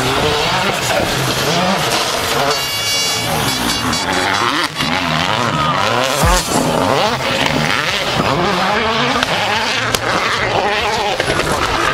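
Rally car's turbocharged engine revving hard, its pitch rising and falling again and again through gear changes as the car slides through a gravel corner, with a thump about six seconds in.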